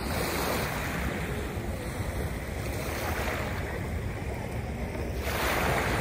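Small Chesapeake Bay waves washing in at the water's edge, swelling a few times with the strongest surge near the end, over a steady low rumble of wind buffeting the microphone.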